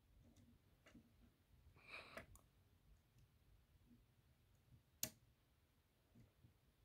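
Near silence with a few faint clicks of small electrical contacts as a 9-volt battery is held to a fire-alarm module's wiring: a short rustle about two seconds in and one sharper click about five seconds in.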